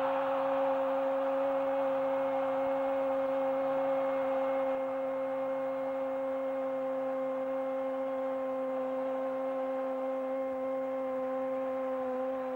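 Spanish-language football commentator's drawn-out goal cry, a "Gooool" shouted and held on one steady high note, over crowd noise that fades about five seconds in.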